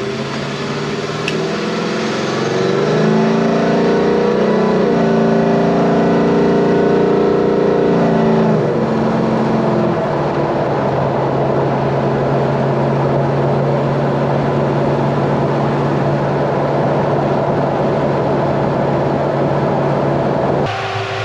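Car engine revved up and held at higher revs for several seconds, then dropping back to a steady idle about nine seconds in.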